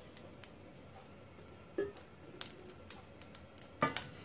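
Stainless steel frying pan holding dry coriander and cumin seeds for dry roasting: a few light scattered clicks, then a sharper knock near the end as a wooden spatula goes into the pan and scrapes the seeds.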